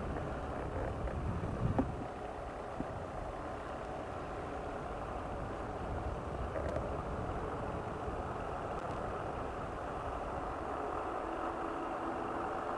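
Paramotor engine running steadily in flight, its carburetor freshly overhauled and running smoothly, over a low rumble. The engine's pitch rises slightly near the end.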